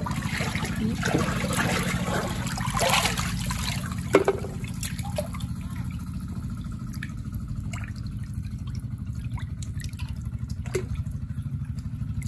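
Shallow muddy water splashing and trickling as it is stirred while feeling for freshwater clams. It is busiest in the first four seconds, with a sharp knock about four seconds in and small clicks after, over a steady low hum.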